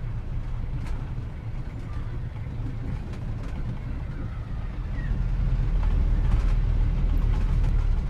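Steady low rumble of a vehicle engine, part of a street soundtrack added to old film footage, growing louder about five and a half seconds in.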